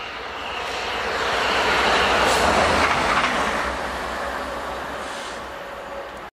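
A British Rail Class 67 diesel-electric locomotive running light passes at speed. Its two-stroke V12 engine rumble and wheel noise build up, peak about two and a half seconds in as it goes by, fade away, then cut off suddenly.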